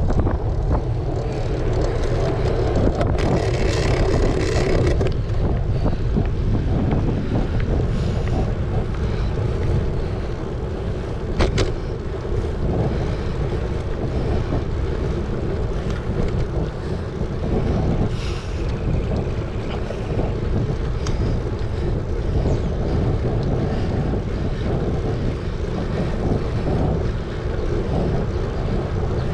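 Wind buffeting a GoPro's microphone as it moves: a steady, low rumbling noise, with one sharp click about eleven seconds in.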